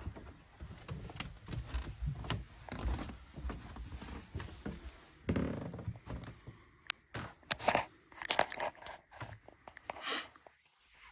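Irregular thumps, scrapes and rubbing from footsteps and a handheld camera being handled while walking through a boat cabin, with a run of sharp clicks and knocks in the second half.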